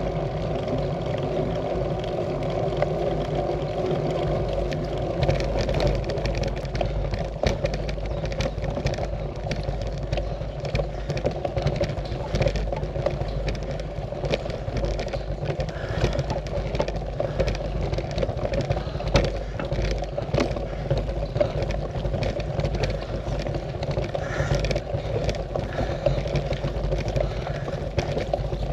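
Road bike in motion: steady wind and road rumble on the microphone, with scattered small clicks and rattles.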